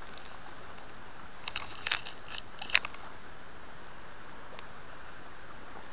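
Steady hiss of a flowing stream. About a second and a half in comes a short run of sharp clicks and crackles, the loudest near three seconds: handling noise from the rod, reel and landing net as a hooked trout is netted.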